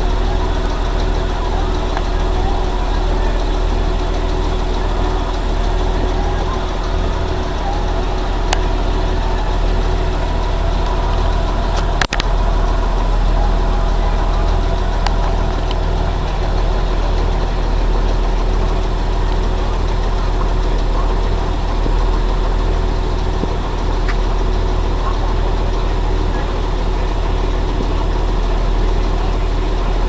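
Blue Bird Vision school bus engine idling steadily, heard from inside at the driver's seat, with one sharp click about twelve seconds in.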